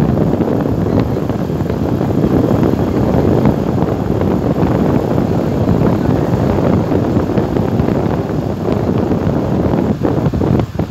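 Wind buffeting the microphone of a phone held by the side mirror of a moving vehicle, with road noise underneath; it eases briefly near the end.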